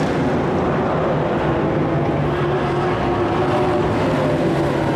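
Race trucks' engines running hard at speed around a dirt oval, a steady loud engine drone with pitch lines that drift slightly.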